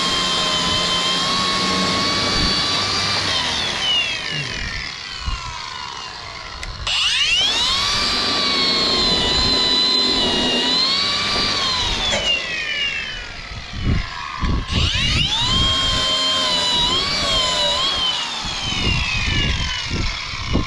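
Electric angle grinder switched on three times. Each time it spins up to a steady high whine, then winds down when released, grinding back fresh weld on steel.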